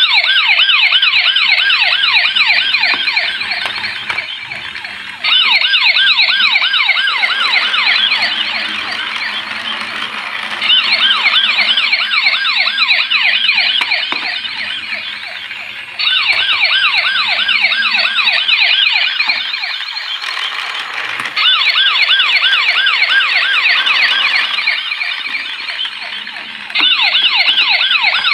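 Battery-powered toy police car's electronic siren sounding a rapid warble, the siren loop restarting about every five seconds, each round starting loud and fading a little.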